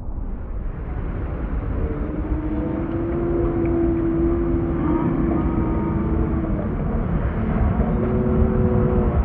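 A jet ski engine running with a steady drone, over the deep rumble of heavy surf breaking.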